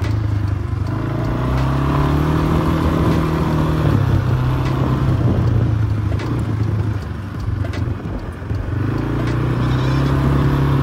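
Dirt bike engine running under way, revving up and holding, easing off about seven seconds in, then picking up again near the end.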